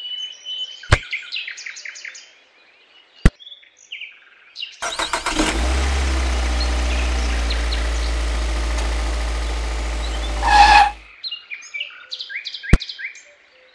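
Tractor engine running steadily for about six seconds, starting about five seconds in, with a louder burst just before it cuts off. Birds chirp before and after it, and there are a few sharp clicks.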